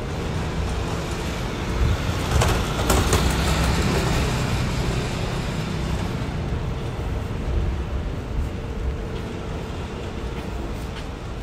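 City street traffic with a steady low rumble. It swells about two seconds in as a vehicle passes close, then slowly eases off.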